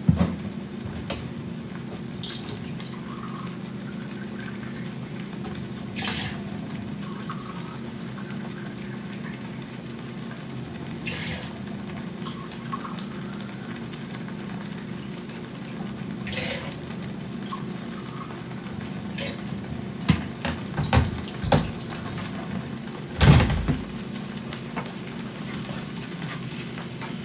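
Blended tomato sauce simmering in a frying pan on a gas stove: a steady low hum with a few brief pops. Near the end come several louder knocks and clatters of a spatula working in the pan.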